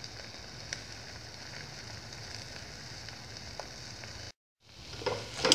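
Beef steaks sizzling in the inner pot of an electric rice cooker: a steady hiss with occasional faint pops. Their released liquid has cooked off and the meat is starting to roast. The sound cuts out for a moment about four seconds in, then comes back louder, with more pops.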